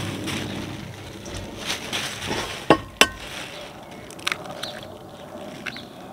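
Egg tapped twice against the rim of a glass measuring jug: two sharp knocks about a third of a second apart, each with a brief ring, followed by a few softer clicks as the shell is pulled apart.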